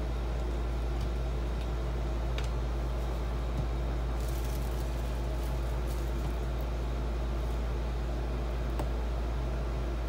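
Steady low hum, with a few faint light ticks.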